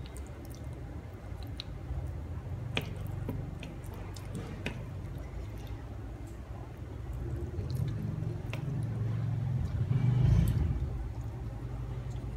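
Chopsticks tearing apart a sticky, glazed fried chicken thigh: wet squishing, with a few sharp clicks of the chopsticks against the plate, over a low steady hum. There is a louder low thump about ten seconds in.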